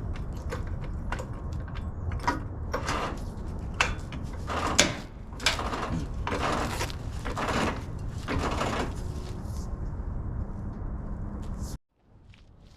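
Hands-on work noise: a string of knocks, clunks and scraping sounds, some lasting up to about a second, over a steady low rumble, cut off abruptly near the end.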